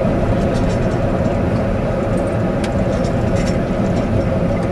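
Car cabin noise while driving: a steady engine and tyre rumble on the road, with a few faint ticks.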